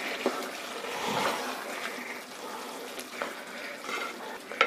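Wooden spoon stirring sliced onions into wet, simmering beef mince in a steel pot, a squelching, scraping sound with a few light knocks of the spoon against the pot, the sharpest near the end.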